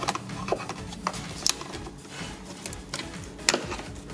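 Flat-blade screwdriver clicking and scraping on a plastic wiring-harness connector as it is pried at to release it, a handful of separate sharp clicks with the loudest about one and a half seconds in and again near three and a half seconds.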